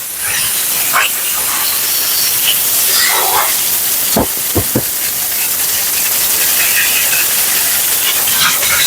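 High-velocity pet dryer blowing a steady, loud rush of air through a Siberian Husky's thick double coat during the blowout, with three short knocks a little over four seconds in.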